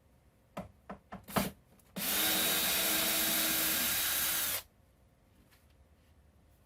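A few short knocks, then a power drill runs at a steady speed for about two and a half seconds, driving out a screw from a wooden 2x4, and stops sharply.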